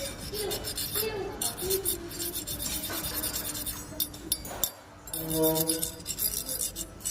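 Repeated sharp clinks and scraping of hard objects, like glass or metal rubbing and knocking, with a steady low hum and a short pitched voice-like sound about five seconds in.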